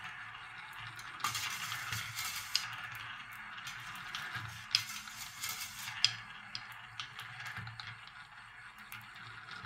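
Steel balls rolling and circling in the turned walnut bowls of a wooden marble machine: a steady rolling hiss with a few sharp clicks, about five in all, as balls knock together or drop onto the wooden track.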